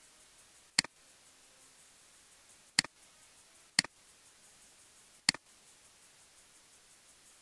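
Four sharp computer mouse-button clicks, spaced a second or two apart, over a faint steady hiss.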